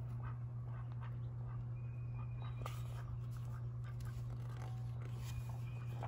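Paper rustling and soft handling clicks as a picture book's pages are held up and turned, over a steady low hum.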